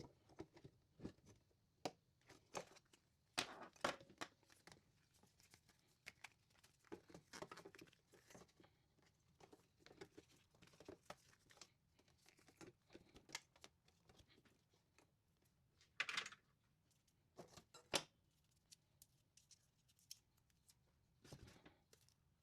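Quiet handling noises of small parts being worked on by hand: scattered clicks, taps and short rustling scrapes, with a short scrape and a sharp click standing out about three-quarters of the way through.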